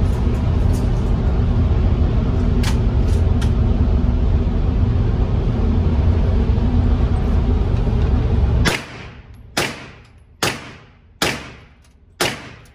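A loud, steady low rumble fills most of the time and cuts off abruptly. Then a Draco AK-pattern pistol fires six single shots in steady semi-automatic succession, a little under a second apart, each echoing off the walls of the indoor range.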